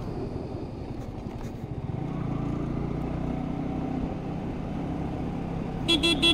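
A road vehicle's engine runs steadily while on the move, a low, even hum. Two short high beeps sound near the end.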